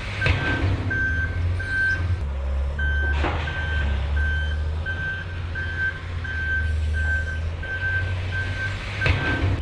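Heavy machinery's reversing alarm beeping about twice a second over a steady low engine rumble, with a short pause in the beeping about two seconds in and a few brief rushes of noise.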